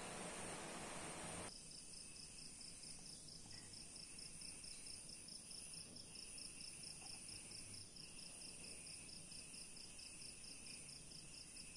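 Faint hiss for the first second and a half, then a cricket chirping steadily in the background at about four pulses a second.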